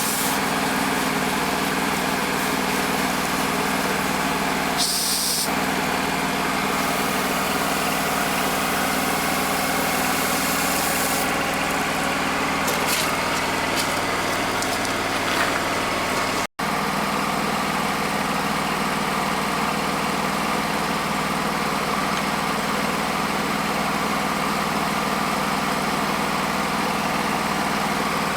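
An engine running steadily at an even speed. The sound cuts out for an instant a little over halfway through.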